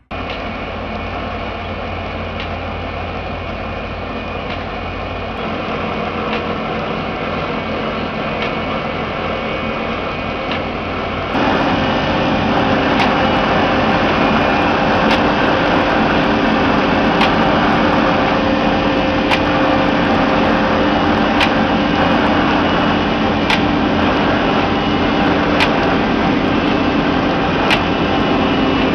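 Rail grinding machine working on the track: steady machine noise with a hum. About 11 seconds in it gives way to a louder, rougher grinding noise, with sharp clicks about every two seconds.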